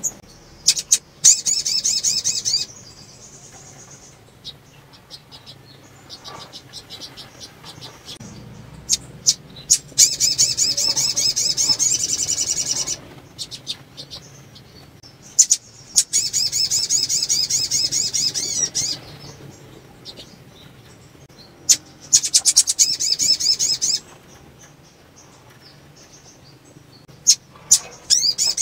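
Female olive-backed sunbird calling: four fast, high, rapid trills of two to three seconds each, with a fifth starting near the end, and single sharp chip notes between them. It is the call of a female in breeding condition, used to set males singing.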